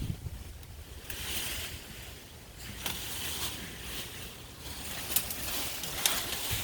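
Rustling of leaves and branches, with wind rumbling on the microphone and a few sharp clicks or snaps.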